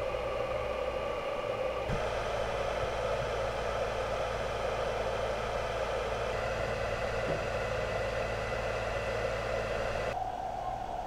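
A steady whirring hum that changes abruptly to a slightly different tone about two seconds in, again around six seconds in, and once more near the end.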